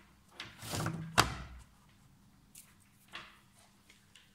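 Objects being shifted and set down on a workbench as a bench multimeter is brought in: a stretch of handling noise with one sharp knock about a second in, then a few light clicks.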